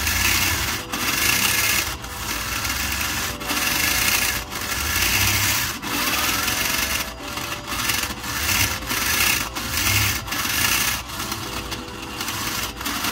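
Home-built 3D-printed linear actuator running fast back and forth, its small DC motor spinning a 5/16 nut along a threaded rod. It goes in strokes of about a second each, with a short break at each reversal. The actuator shakes noticeably on its mount at this speed.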